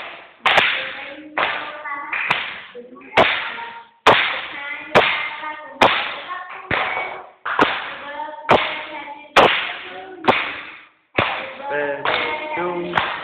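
People singing a birthday song together while clapping their hands on the beat, about one sharp clap a second, each clap followed by a held sung note.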